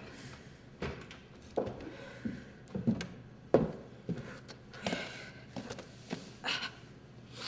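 Footsteps and knocks on a carpeted wooden stage platform as a person walks over and sits down: about ten uneven thumps, the loudest about three and a half seconds in, ending with a short breathy sound.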